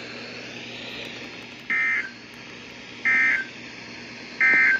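NOAA Weather Radio playing the EAS/SAME end-of-message data tones after a severe thunderstorm warning: three identical short buzzing data bursts about 1.3 s apart, over steady radio hiss. The bursts signal the end of the alert message.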